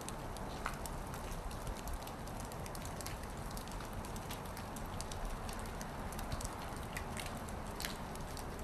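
Heavy snowfall: a steady hiss with many small scattered ticks of flakes landing, over a low, fluttering rumble.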